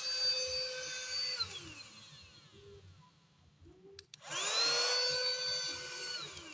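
Mini vacuum cleaner's small electric motor running with a steady whine, then winding down after about a second and a half. About four seconds in the switch clicks, the motor spins up again, runs for about two seconds and winds down once more near the end.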